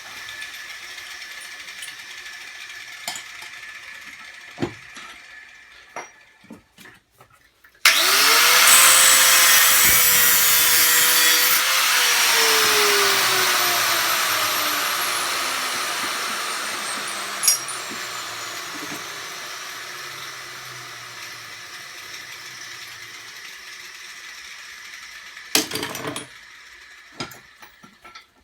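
A handheld electric power tool is switched on about eight seconds in, runs at full speed for a few seconds, then is released and winds down slowly, its pitch falling over more than ten seconds. Before it start, scrap metal pieces clink and knock as they are handled.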